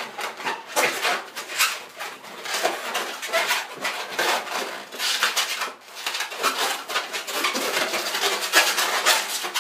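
Inflated latex modelling balloons squeaking and rubbing against each other as they are twisted by hand, in an uneven run of short squeaks and rubs.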